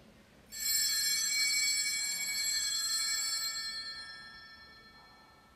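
Altar bell struck once at the elevation during the consecration of the Mass. It rings with several high, clear tones that die away over about four seconds.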